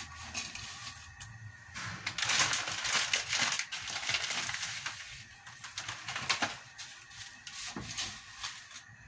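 A bundle of dry spaghetti being pushed down into a pot of boiling water, the stiff strands rustling and clicking against each other and the metal rim. About two seconds in there is a louder spell of rustling noise lasting two or three seconds, followed by scattered clicks.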